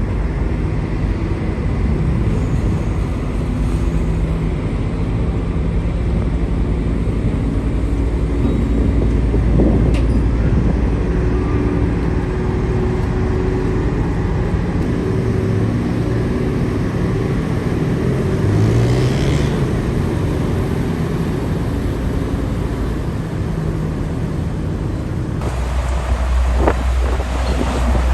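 Motor engine running with a steady low drone and a few held tones, one of which rises briefly about two-thirds of the way through. Wind rumbles on the microphone in the last few seconds.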